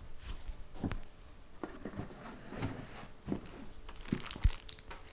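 Rustling and handling noises as a leather boot is taken out of its box and dust bag, with scattered soft knocks and one sharper knock about four and a half seconds in.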